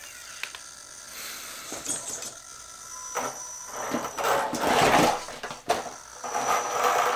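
Electric RC crawler truck's motor and gears whining as it crawls slowly over split firewood logs, with its tyres scraping and knocking on the bark. The drivetrain gets loudest about four to five seconds in, and there is a sharp knock just before six seconds.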